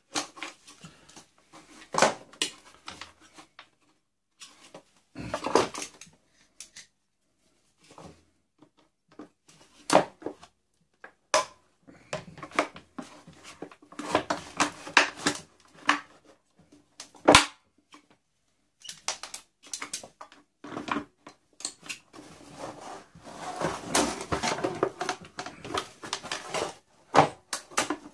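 Pliers gripping and levering at an industrial vacuum cleaner's motor in its plastic housing: irregular clicks, knocks and scrapes of a metal tool against plastic and metal, with a longer stretch of scraping near the end.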